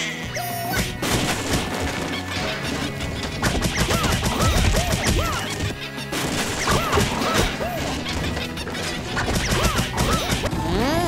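Crashing and smashing impacts from a truck hitting a steel crash-test barrier, mixed with background music and cartoon sound effects that swoop up and down in pitch.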